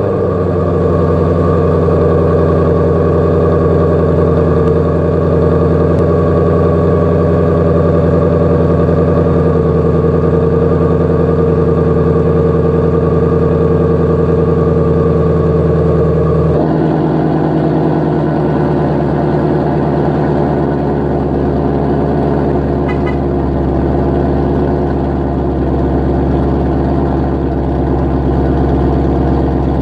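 2016 Ford Shelby GT350's 5.2-litre flat-plane-crank V8 idling through its exhaust just after start-up. The high idle steps down to a lower, rougher idle about 17 seconds in.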